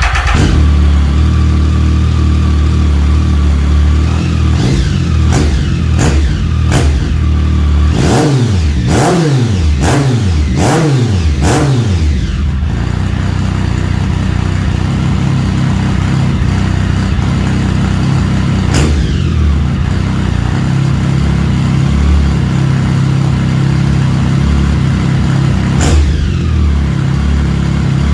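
Triumph Speed Triple 1050's inline three-cylinder engine, breathing through a short aftermarket exhaust, catches at the start and idles. It is revved with a string of quick throttle blips between about 4 and 12 seconds, then settles back to idle, with two more single blips later.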